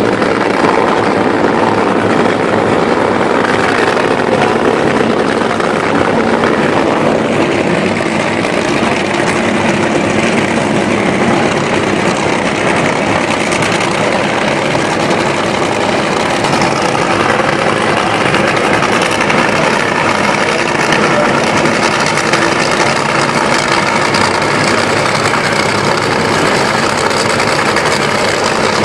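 Top Fuel dragsters' supercharged nitromethane V8 engines idling at the starting line: a loud, steady rumble with no revving.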